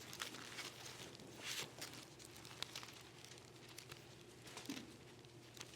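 Faint, scattered rustling and soft crinkling of thin Bible pages being turned, over a low steady hum.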